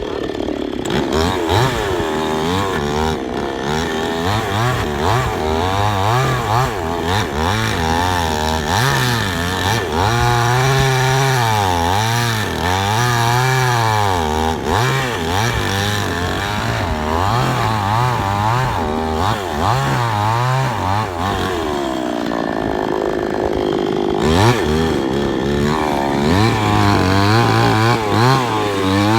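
Chainsaw cutting wood, its engine pitch rising and falling over and over as it is throttled up and dragged down in the cut.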